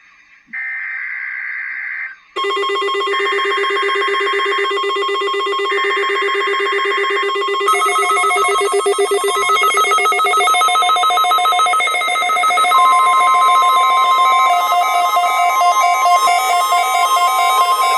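NOAA Weather Radio SAME alert header: three data bursts of about a second and a half each, opening the Required Weekly Test. From about two seconds in, a louder electronic ringtone-like melody plays over them, changing its pattern a few times, with a steady tone held under it for a couple of seconds past the middle.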